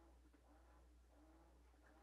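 Whirlpool Smart Load top-load washing machine agitating during its wash cycle, heard very faintly: a low hum with a motor tone that swells and fades about once every 0.7 s as the agitator changes direction.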